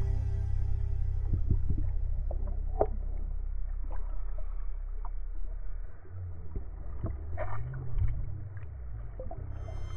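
Muffled underwater sound picked up by the camera: a low rumble with scattered clicks and taps, and a low tone that rises and falls near the end. Background music fades out at the start and comes back just before the end.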